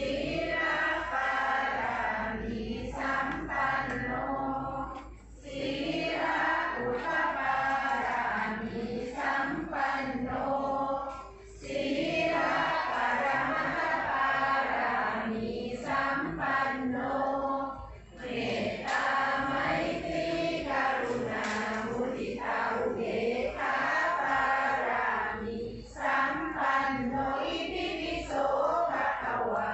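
A group of Buddhist devotees chanting prayers together in unison, a steady recitation in long phrases with brief breaks for breath about every six seconds.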